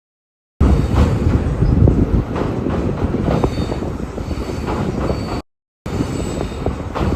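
Indian Railways passenger train running, heard from a window seat: a steady rumble of wheels on the track with wind noise, a few knocks and brief faint wheel squeals. The sound cuts out to dead silence for the first half second and again for a moment about five and a half seconds in.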